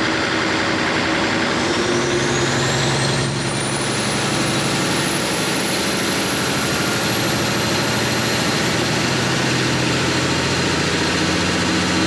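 Mechanical N14 Cummins diesel running with its engine speed raised: the switchblade turbocharger's whine rises over about two seconds, then holds high and steady as the turbo builds boost toward the 15 pounds at which the actuator lever opens.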